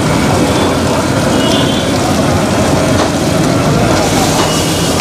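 Steady noise of a hot flat griddle and its burner while pav bhaji is mashed and scraped with a hand masher on the iron, faint clicks from the masher standing out now and then, over street traffic.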